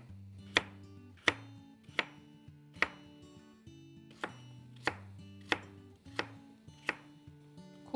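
Chef's knife chopping a raw potato into cubes on a wooden end-grain cutting board: about ten sharp knocks of the blade on the board, roughly one every two-thirds of a second, with a short pause midway.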